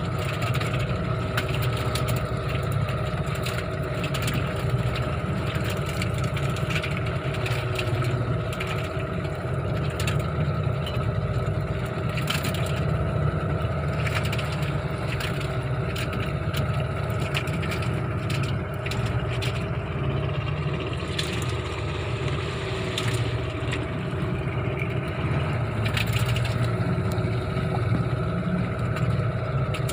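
A boat's engine running steadily, with many short clicks and knocks over it.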